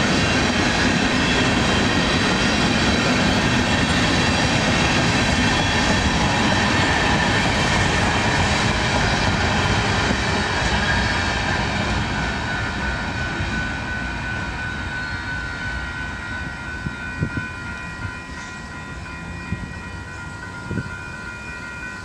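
Freight train's hopper and tank cars rolling past, a steady rumble of wheels on the rails that fades from about halfway through as the end of the train moves away. As it fades, a thin steady high whine and a few faint clicks are left.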